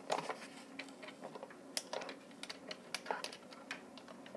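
Irregular small plastic clicks and taps from a toy truck and its grappling-hook launcher being worked by hand.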